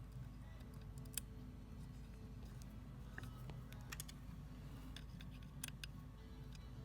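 Scattered sharp little clicks of small metal gun parts being handled and fitted: the anti-walk pin retainers going onto the trigger pins of an AR-15 lower receiver, over a low steady background.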